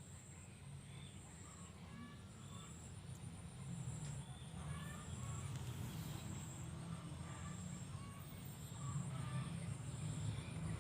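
Insects trilling in even, repeating pulses at a high pitch, with scattered short bird-like chirps and a steady low rumble underneath.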